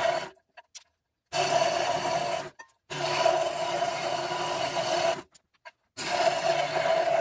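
Scroll saw fitted with a thicker blade, running steadily as it cuts a small block of 2x4 wood. The sound stops and starts abruptly three times, with dead silence in between.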